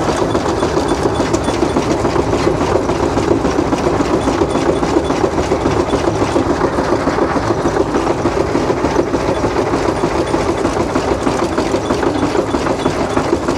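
Steam traction engine running under way, its exhaust beat and gearing making a steady, rapid, even rhythm.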